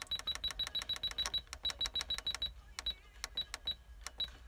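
Pure Highway H250S car radio head unit giving short high key beeps as its station-skip button is pressed, scrolling through DAB stations. The beeps come quickly, about six a second, then slow and become uneven from about two and a half seconds in.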